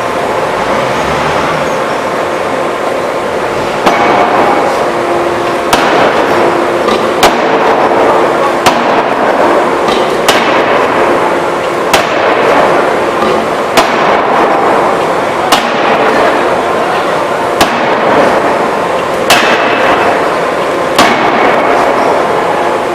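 A 2-ton hydraulic open die forging hammer striking in a steady rhythm: about eleven heavy blows, roughly one every 1.7 seconds, starting about four seconds in, over a steady loud mechanical hum.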